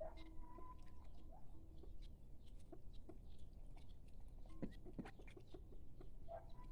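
Chickens clucking, with short scattered calls and a held call at the start.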